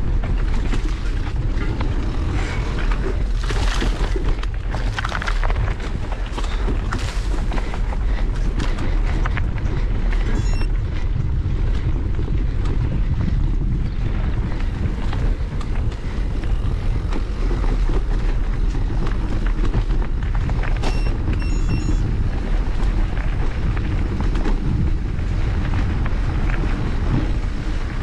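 Mountain bike ridden fast along a dirt singletrack: tyre noise on the ground and many small knocks and rattles from the bike, under heavy wind rumble on the camera microphone.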